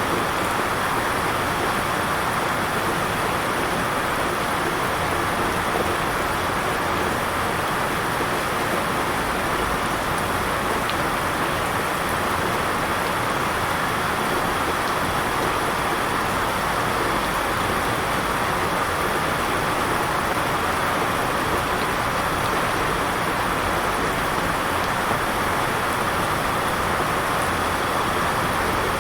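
Heavy downpour: rain falling hard and without letup as an even, unbroken hiss, heard from indoors by a window.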